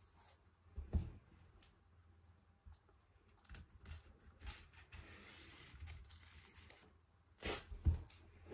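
Shrink wrap on a vinyl record being slit with a small pocket knife: scratching and crinkling of the plastic, with knocks from the record jacket being handled on the table. The loudest knocks come near the end.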